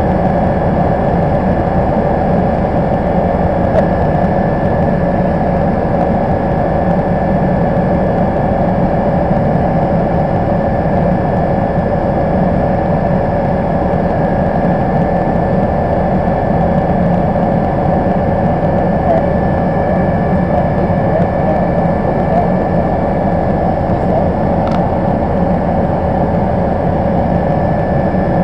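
Cabin noise of an MBB Bo 105 helicopter in flight: its twin turboshaft engines, transmission and rotor make a loud, steady hum of several tones over a low rumble.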